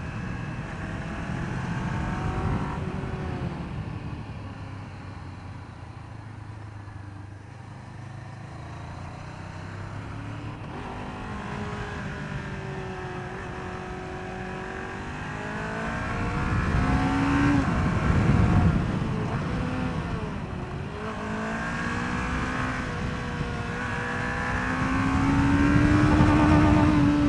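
A vehicle engine running on the road, its pitch rising and falling several times as it accelerates and changes gear, climbing highest near the end.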